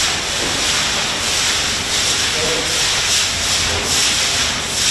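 Brooms and squeegees scrubbing a wet, soapy floor: a steady watery hiss with repeated swishes of the strokes.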